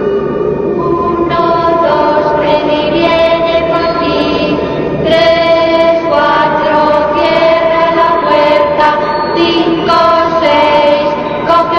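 Background music: a choir singing long held notes that change pitch every second or so.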